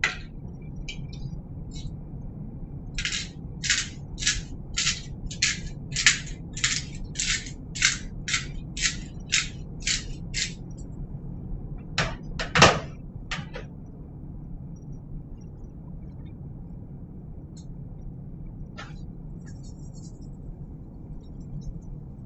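Garlic, salt and pepper shaker shaken out: about fifteen even strokes, roughly two a second, then a few sharp knocks about twelve seconds in.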